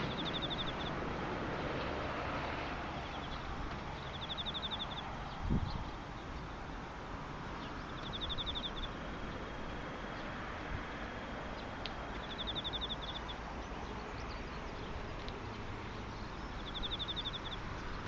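An insect singing short, finely pulsed high trills, each under a second long, repeating about every four seconds over a steady background hiss. A single low thump comes about five and a half seconds in.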